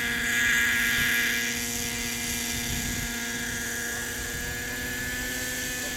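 Thunder Tiger Raptor 50 radio-controlled helicopter hovering low, its nitro glow engine and rotor running at a steady pitch, a little louder in the first second.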